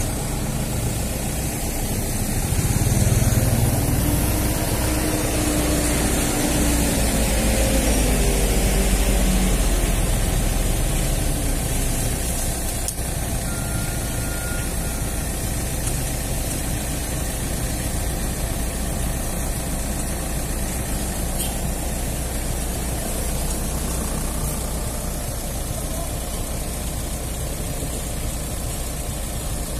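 Komatsu PC78US mini excavator's diesel engine running steadily, louder, with gliding, shifting tones, from about two to ten seconds in, then settling back to an even run.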